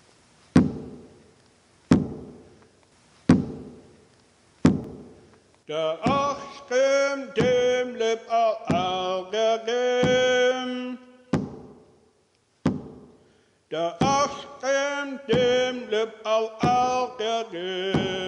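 A drum beaten slowly and evenly, each strike ringing out, a little under a second and a half apart. From about six seconds in, a single voice sings a chant over the continuing beat.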